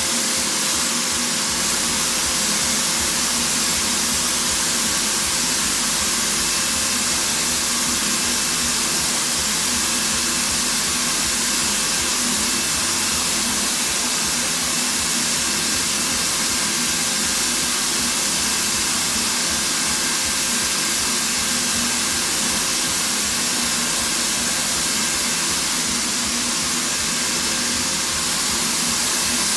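Bosch PFS 3000-2 paint spray system running steadily while spraying wall paint: the base unit's turbine blower pushes air down the hose to the gun, giving a steady rushing hiss with a few faint held tones.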